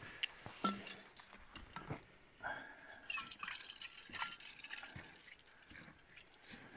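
Red wine poured from a bottle into an aluminium canteen, gurgling and glugging faintly through the canteen's narrow neck. A few light clicks and knocks of handling come first, and the pouring starts about two and a half seconds in.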